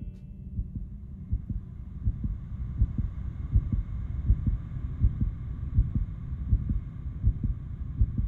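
A low, rumbling drone of film sound design with irregular deep pulses and a steady high hum above it, growing louder.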